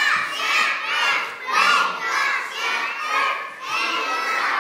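Many young children's voices together: a class of three-year-olds calling out loudly and overlapping, in waves that swell about every second.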